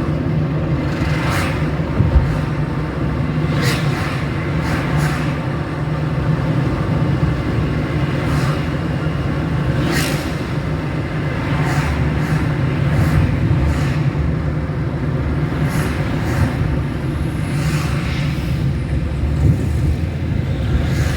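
Car driving on a road: a steady low rumble of engine and tyres, with brief swells of noise every few seconds from passing traffic.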